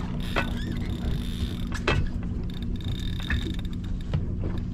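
Large spinning reel being cranked under the load of a heavy fish, its gears creaking and clicking irregularly. Underneath is the steady low hum of the boat's engine.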